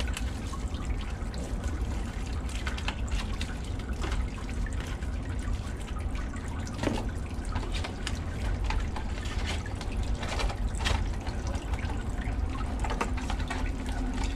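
Plastic packaging and a small cardboard box being handled and opened, giving irregular light crackles and clicks over a steady low rumble.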